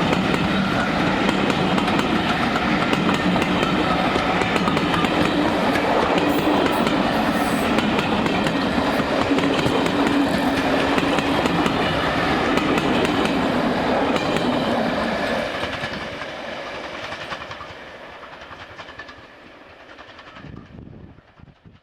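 A train running past on the track, loud and steady, then fading away over the last several seconds as it moves off.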